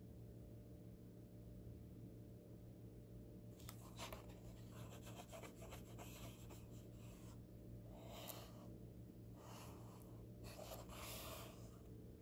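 Faint scratchy rubbing of a finger moving over a paper book page, starting a few seconds in and coming in short strokes, over a steady low hum.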